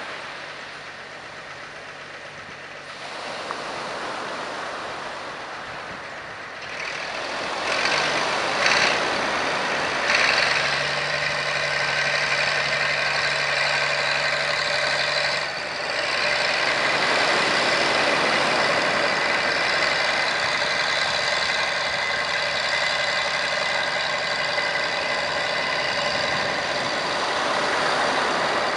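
Heavy construction machinery running: a steady engine and working noise that grows louder about seven seconds in.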